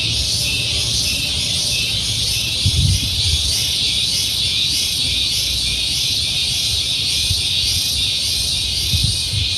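Loud, high-pitched insect chorus, pulsing about two to three times a second, with a thin steady whistle above it. A few dull low thumps come about three seconds in and again near the end.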